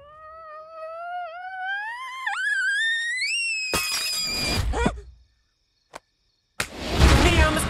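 A cartoon young girl's long, high squeal of delight, rising steadily in pitch with a slight quiver. A short burst of noise follows, then a second or so of silence, and music starts near the end.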